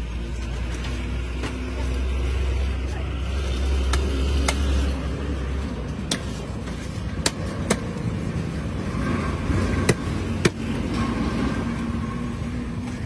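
Cleaver chopping through a large catla fish on a wooden log block: about eight sharp, irregular knocks, the loudest two about ten seconds in. A steady low engine hum runs under the first half and stops about six seconds in.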